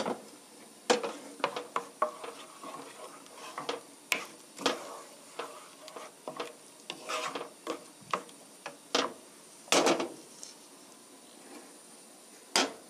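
A wooden spoon stirs and scrapes a thick cream-and-cheese sauce in a frying pan, with irregular knocks of the spoon against the pan. A louder clunk comes near the end as the pan is set down on the gas stove's grate.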